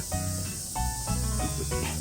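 Background music with changing melodic notes and a bass line, over a steady high hiss.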